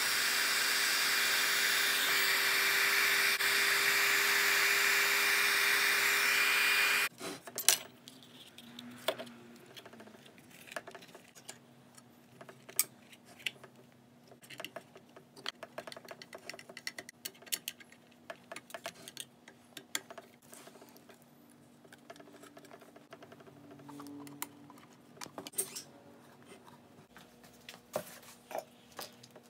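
Heat gun blowing hot air onto heat-shrink tubing, a steady rushing noise with a held tone, switched off about seven seconds in. Then faint scattered clicks and taps of wires and brass lamp parts being handled.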